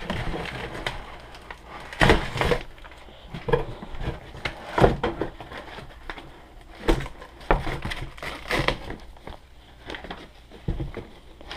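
Styrofoam packing blocks and a cardboard box being handled and pulled apart as a boat hull is lifted out, giving irregular rubs and knocks spaced a second or more apart.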